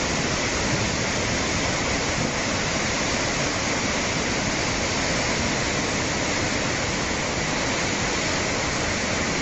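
A river in flood rushing and churning in a steady, unbroken torrent of brown water.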